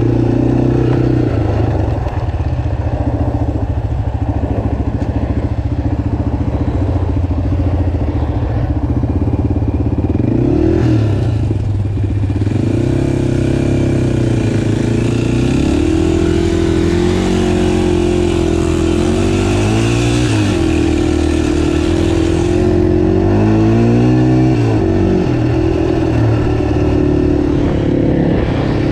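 Off-road vehicle engine running under way, its pitch rising and falling several times as the throttle opens and closes.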